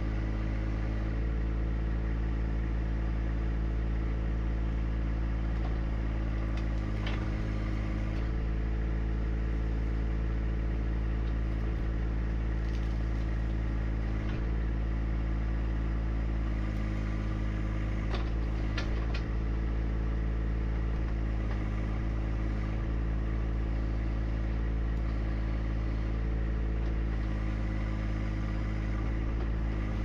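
John Deere 1025R compact tractor's three-cylinder diesel engine running at a steady speed, with a few short clanks over it.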